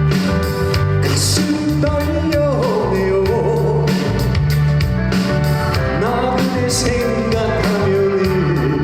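Trot song playing with a steady beat, with a melody line that slides up and down and singing over it.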